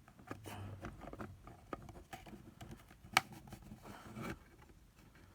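Faint clicks, scrapes and rustles from handling and prying at a plastic charger power-supply case while taking it apart, with one sharper click about three seconds in.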